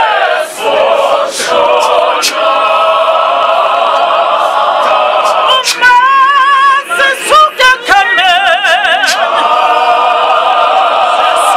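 Church choir singing without instruments, a man's strong lead voice over the massed voices of the congregation. Around the middle, one voice holds notes with a wide, wavering vibrato.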